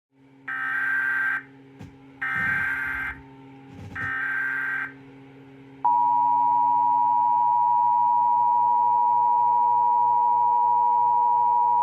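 Emergency Alert System tones: three short bursts of the SAME header's digital data screech, each just under a second. About six seconds in, the steady two-tone attention signal starts and holds.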